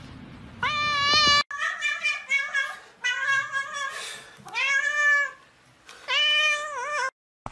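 Domestic cat meowing over and over: a run of five or six long, drawn-out meows with short gaps between them.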